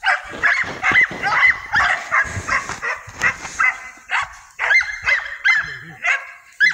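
Dog barking in a rapid string of short, high yips, about three a second, with a few dull thumps among them.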